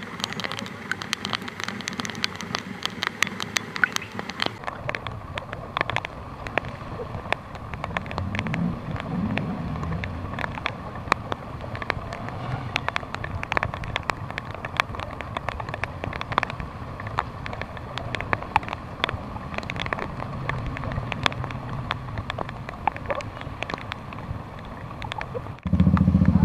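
Heavy rain falling, with drops ticking sharply and densely on the camera and a steady hiss of rain on the wet ground, and traffic passing at a low level. Near the end a motorcycle engine starts close by and runs, much louder than the rain.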